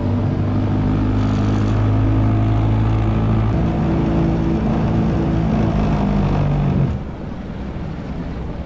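Tiller outboard motor on a small aluminium fishing boat running steadily under way. About seven seconds in it is throttled back and drops in level.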